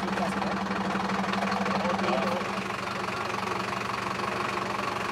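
Diesel engine of a Mercedes-Benz Atego fire engine running steadily with a low, even drone, a little louder in the first two seconds.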